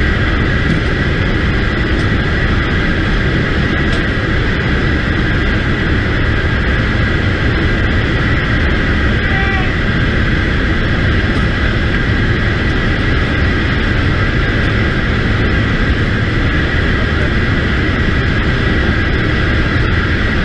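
Military transport aircraft's engines running, with wind rushing past the open rear cargo ramp, heard from inside the cargo hold: a loud, steady noise with a high whine held over it.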